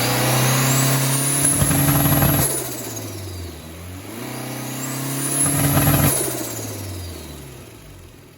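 Turbocharged VW AP 1.6 four-cylinder revved twice on the two-step launch limiter. Each time the engine holds high revs with a turbo whistle rising and staying high, a rapid chatter near the top, then revs and whistle fall away as the throttle is released. With the blow-off valve disabled, the chatter is the turbo flutter.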